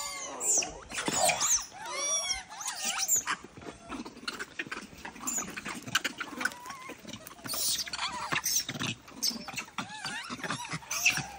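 A troop of macaques gives many short, high squealing calls that glide up and down, crowding round a crate of bananas to grab the fruit, among scattered clicks and rustles.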